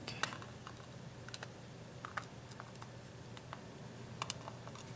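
Light, irregular clicks and taps of small lock pins, springs and tweezers being handled and set down on a work surface.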